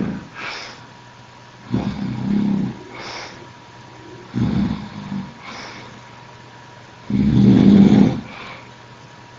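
A man snoring over an open voice-chat microphone, three long rasping snores about two and a half seconds apart, each followed by a short, softer breath out. The third snore is the loudest.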